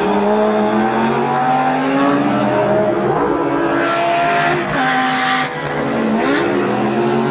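Race car engines revving and passing, their pitch gliding up and down.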